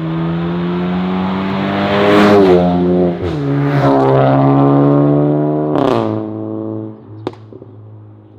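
VW Golf 8 GTI's turbocharged four-cylinder engine accelerating hard past through a catless turbo-back Armytrix valvetronic exhaust. The engine note climbs, dips at a gear change about three seconds in, and climbs again. It cuts off abruptly near six seconds and fades away, with one sharp crack about a second later.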